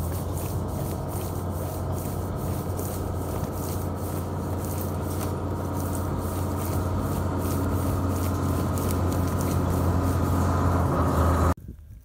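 Foil pouch of two-part fence post backfill foam being kneaded and shaken to mix its components, crinkling in a quick even rhythm over a steady low rumble. The sound stops suddenly just before the end.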